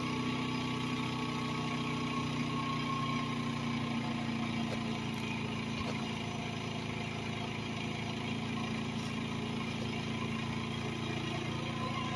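Generator engine running steadily on wood gas from a gasifier. A faint high whine fades out a few seconds in.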